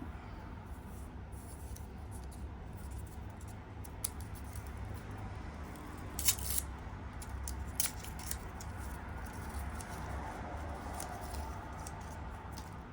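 Handling and opening of a camera's retail packaging: scattered small clicks, snips and crinkles, with two sharper clicks about six and eight seconds in, over a low steady hum.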